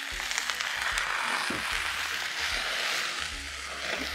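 Water poured into a hot pan of onions, chillies and curry leaves frying in oil, sizzling and hissing steadily as it flashes to steam. The water is added to soften the onions.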